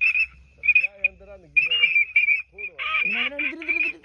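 A dense chorus of frogs calling, a rapid high pulsing croak that hardly lets up. Lower calls that bend up and down come in about a second in and again near the end.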